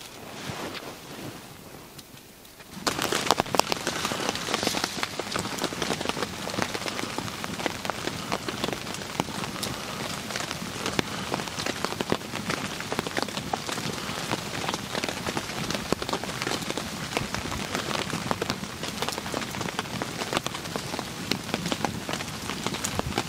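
Rain pattering steadily on the tarp sheeting of a shelter, a dense, even patter of many small drop ticks. It starts suddenly about three seconds in, after a quieter hiss.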